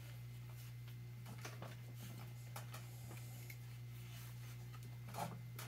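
Faint scattered light clicks and rubbing as hands squeeze piston rings and ease the cylinder of a Sea-Doo 951 engine down over its pistons, over a steady low hum. A slightly louder handling sound comes near the end.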